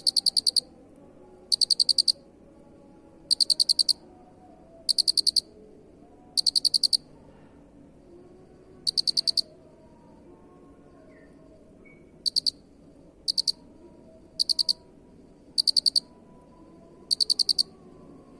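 Cricket chirping: short high-pitched chirps of rapid pulses, each about half a second long, repeating every one to two seconds with a few longer pauses.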